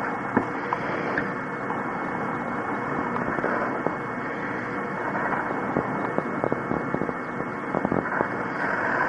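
Drawing strokes on paper: a steady scratchy noise with many small clicks and ticks scattered through it.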